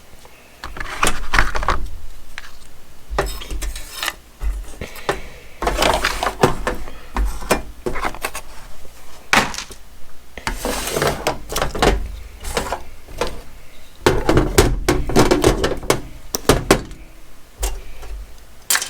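Hands handling and opening packaging on a work surface: irregular rustling, clicks and knocks, with dull thumps as items are set down.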